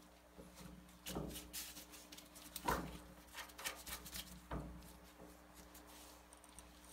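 Three light knocks and clinks of steel suspension parts being handled as the upper ball joint stud is seated in the spindle and its nut started by hand, the loudest near the middle.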